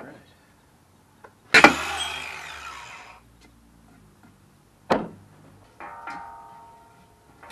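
Cordless angle grinder triggered for a moment about a second and a half in, loud and then winding down over a second or so. A sharp metal clank follows, then the steel handrail tubing rings with a clear tone as it is handled near the end.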